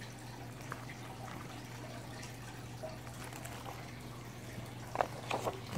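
Quiet room with a steady low hum; about five seconds in, a few soft taps and rustles as the pages of a picture book are handled and turned.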